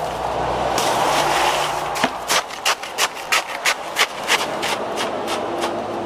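Crushed ice poured from a plastic bucket, sliding with a steady rush. Then a wooden pole is jabbed down into the ice in an ice cream tub, a run of sharp knocks about four a second for a couple of seconds, tapering into fainter jabs.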